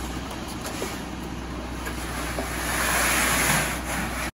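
A ready-mix concrete truck's diesel engine running steadily, and about three seconds in a loud rushing slide as a wheelbarrow load of wet concrete is tipped out onto the ground.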